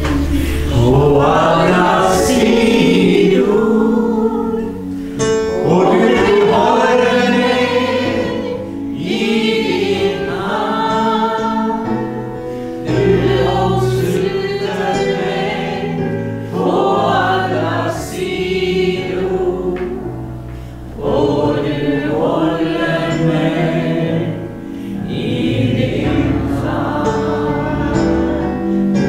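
Voices singing a Swedish worship song in phrases of a few seconds each, over a steady instrumental accompaniment.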